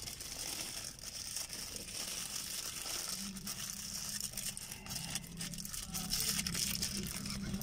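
Paper fast-food sandwich wrapper crinkling and rustling as it is peeled open and handled, many quick small crackles, over a steady low hum.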